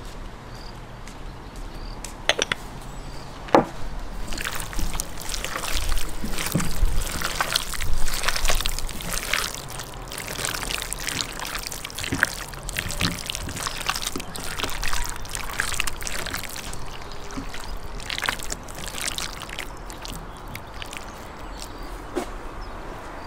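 Wet squelching and slapping of bare hands kneading and turning raw liver pieces in a ceramic plate, a dense run of short wet smacks that thins out near the end. A couple of sharp knocks come in the first few seconds.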